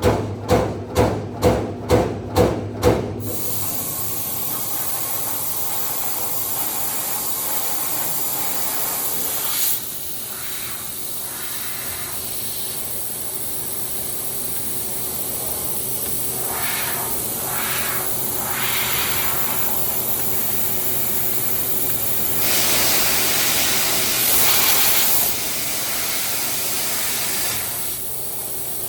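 Servo-electric CNC turret punch press hitting about two to three strokes a second, stopping about three seconds in. A steady hiss follows, louder for a few seconds now and then, typical of the machine's 3 kW laser cutting head running with its assist gas.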